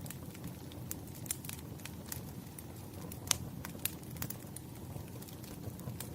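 Wood fire burning, with irregular sharp crackles and pops over a low steady rumble; one pop about three seconds in is louder than the rest.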